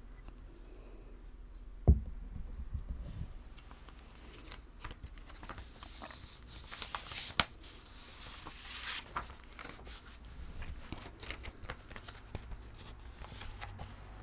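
Close-up handling noise: a blouse sleeve and hands rustling against the microphone, with a single thump about two seconds in and a sharp click around the middle, among scattered crinkles and taps.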